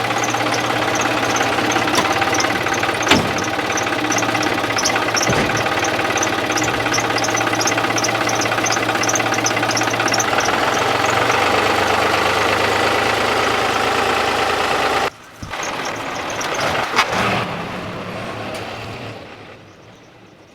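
An engine running steadily, with a rapid high ticking over it for roughly the first half. It cuts off suddenly about three-quarters of the way through, and a quieter running sound follows and fades out.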